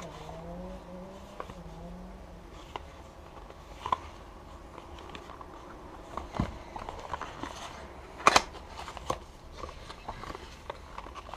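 A cardboard after-shave balm carton being handled and its top flap pulled open: scattered light taps, rustles and clicks. The loudest is a sharp double snap about eight seconds in.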